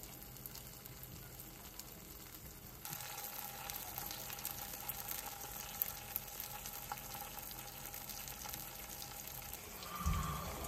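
Spam frying in a pan: a steady sizzle with small crackles, which grows louder about three seconds in.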